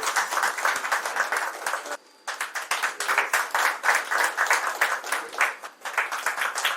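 Audience applause: many hands clapping steadily, broken by a brief drop-out about two seconds in.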